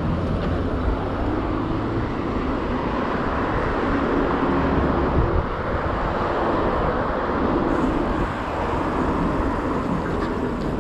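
Road traffic: cars passing on a road alongside, a steady rumble with one vehicle's engine hum swelling and fading in the middle.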